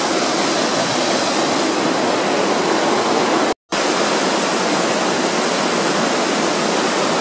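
Loud, steady rush of a waterfall, the falling water running under a fringe of ice. The sound cuts out for a split second a little past halfway, then carries on unchanged.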